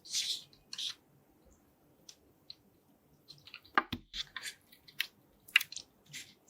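Slime being squeezed and pressed by hand, giving irregular short crackles and pops. They come thicker in the second half, the loudest a little before four seconds in.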